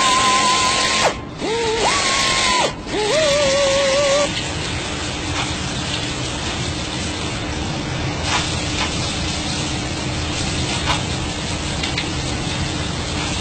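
Small high-speed power tool abrading denim whines, cutting out and spinning back up twice with a rising pitch, then running at a lower pitch until it stops about four seconds in. After that, a steady hiss with a faint low hum.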